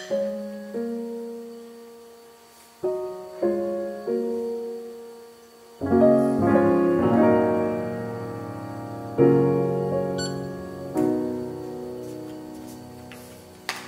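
Soft, slow piano music: chords and single notes struck every second or two, each left to ring and fade.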